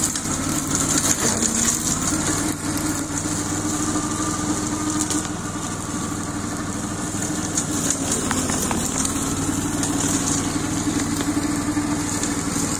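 Swaraj Code mini tractor engine running steadily while it drives a rear-mounted chain slasher through tall weeds, with a steady high hiss above the engine note.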